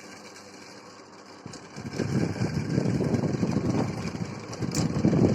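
18-watt table fan running, its air stream buffeting the microphone as a rough, fluttering rush that comes in about a second and a half in and grows louder, over a faint motor hum.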